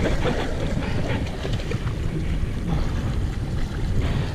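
Wind buffeting the microphone on an open fishing boat at sea: a steady low rumble, with a few faint knocks.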